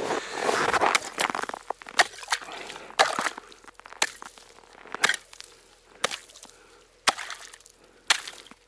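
Ice chisel striking ice, about one sharp blow a second, chopping open an ice-fishing hole, with some scraping and rustling in the first second.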